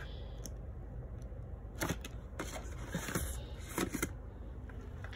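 Light handling noise: a few soft clicks and rustles about two, three and four seconds in, over a low steady hum.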